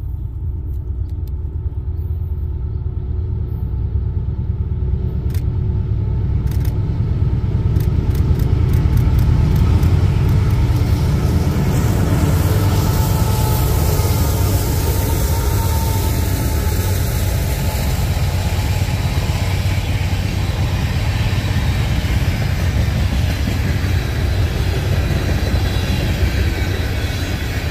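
Canadian Pacific freight train passing close by: diesel locomotives rumbling in as they approach, loudest about ten seconds in, then a string of loaded tank cars rolling steadily past on the rails.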